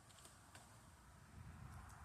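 Near silence: a faint low rumble with a few faint clicks.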